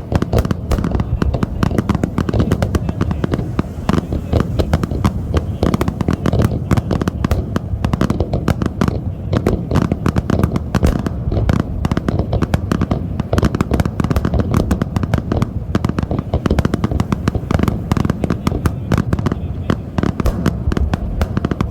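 Fireworks going off in a dense, continuous barrage, many sharp bangs and cracks a second with no pause, fading away at the end.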